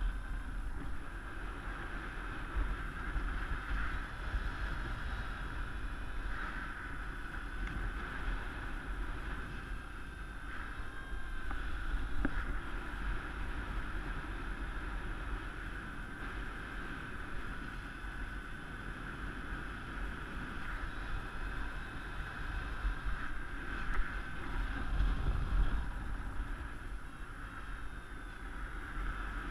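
Airflow rushing over the microphone of a helmet camera in paraglider flight: a steady, gusting low rumble, with a wavering high whistle above it. The rush swells a few times, loudest near the end.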